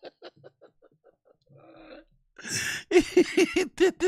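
A man laughing: a run of short laughs that fades away, then a sharp in-breath and a burst of loud laughter near the end.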